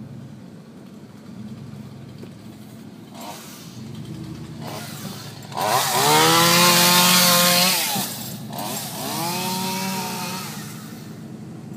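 Chainsaw revving up hard for about two seconds partway through, its pitch rising then falling, then a second, weaker rev, over a low steady hum.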